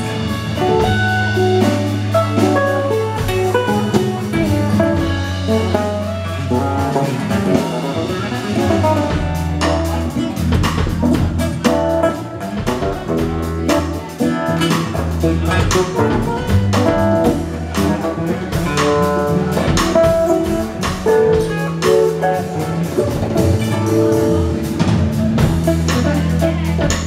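Live acoustic band playing: two acoustic guitars, an electric bass and conga drums keeping a beat.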